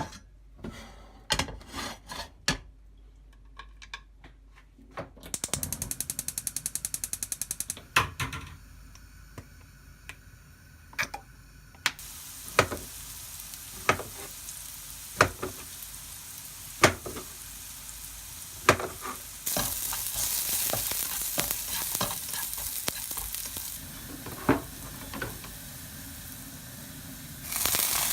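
Food sizzling as it fries in a pan, with a utensil knocking against the pan every second or two; the sizzle grows louder about two-thirds of the way in. Before the frying starts there is a run of rapid, even clicks.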